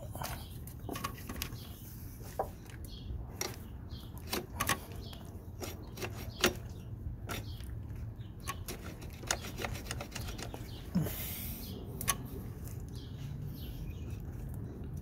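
Scattered light clicks and knocks of a hand handling the alternator and its mounting bracket in a car's engine bay, with a short hiss about eleven seconds in, over a steady low hum.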